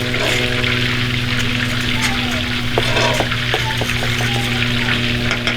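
Breaded cube steak frying in very hot oil: a steady sizzle and crackle over a low hum. A few sharp clicks near the middle come from stirring the gravy in its pan.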